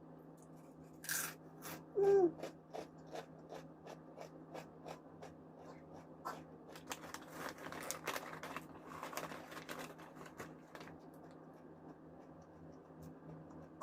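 Crunchy spicy chips being chewed close to the microphone: a run of crisp crunches, two to four a second, with one brief louder sound about two seconds in.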